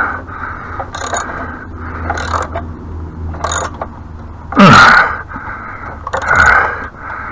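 A man breathing hard and straining with effort, in rhythmic strokes about once a second, then two louder grunts with a falling pitch in the second half, as he forces a ratchet against a binding bolt.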